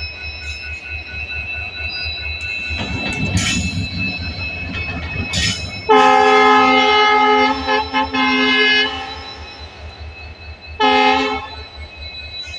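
Indian Railways train horn: one long blast of about three seconds, about six seconds in, then a short blast near the end. A steady low rumble of the train runs underneath.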